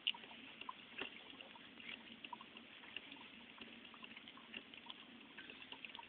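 Drip coffee maker brewing: faint, irregular gurgling and dripping.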